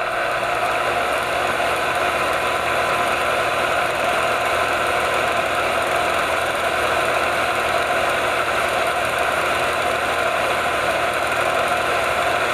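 Film projector running: a steady mechanical clatter and whir at an unchanging pace, cutting off abruptly at the end.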